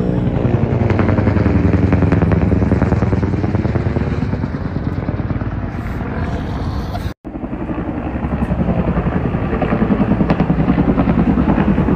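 Helicopter flying low, its rotor blades beating rapidly, with the pitch of the engine bending as it passes over. The sound cuts out briefly about seven seconds in, then the rotor beat carries on.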